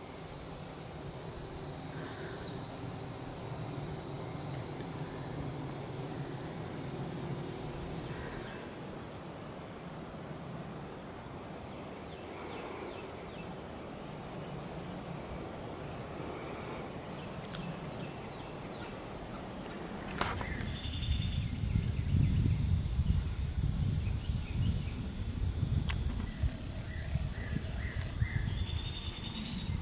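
Insects calling in a steady high-pitched drone. About two-thirds of the way in, the drone changes pitch and a louder low rumble joins it.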